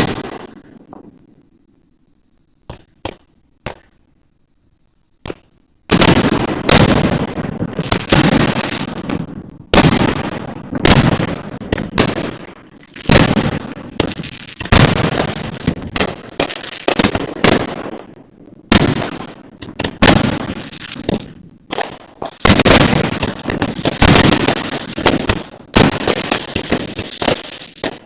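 Fireworks display: one loud bang, a few small crackles, then from about six seconds in a fast barrage of aerial shell bursts, bang after bang with rumbling echoes, as in a finale. A faint steady high tone runs under the first few seconds.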